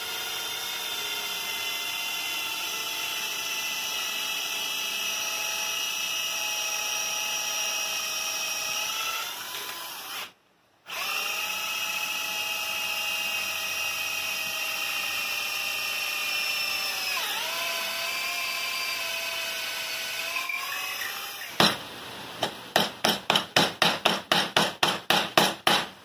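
Cordless drill boring into the wooden kayak frame: a steady motor whine that stops once briefly, dips in pitch for a moment further on, and stops a few seconds before the end. Near the end comes a run of sharp, regular clicks, about four a second.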